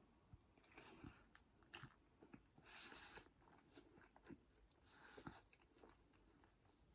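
Faint close-up chewing and biting: soft crunches and wet mouth clicks of someone eating noodles and chicken balls topped with raw onion.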